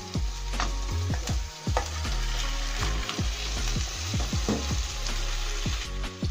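Beef loin chops sizzling in hot oil in a frying pan, with a few clicks of metal tongs as one chop is turned over in the first couple of seconds. A deep low hum with falling pitch glides runs underneath.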